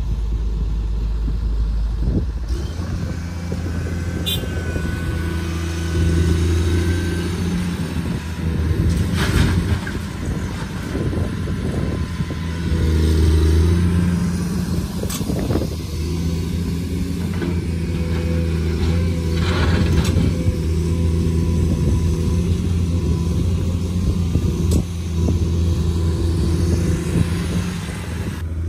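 Komatsu PC210 hydraulic excavator's diesel engine running under load, its note swelling and easing several times as it digs and swings, with a few sharp knocks and scrapes of the steel bucket in dirt and stones.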